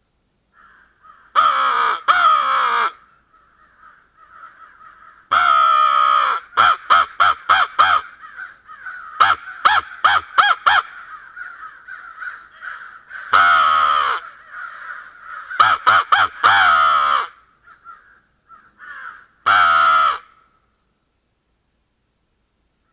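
Loud, harsh crow caws from a hand-blown Crankin' Crow Call: long drawn-out calls alternating with quick strings of short caws, with fainter caws from answering crows in between.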